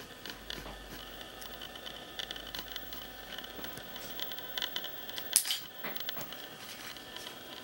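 Newborn puppies suckling at their mother: faint, scattered wet clicks and smacks over a steady low hiss, with one sharper click about five and a half seconds in.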